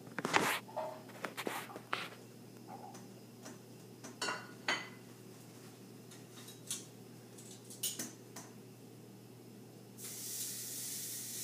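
Pans, plates and utensils clinking and knocking on the stovetop, then about ten seconds in a steady sizzle starts abruptly as steak is laid into a hot pan.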